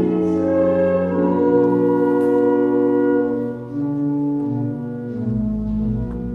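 Pipe organ playing slow sustained chords that change about once a second, with a deep pedal note coming in about five seconds in.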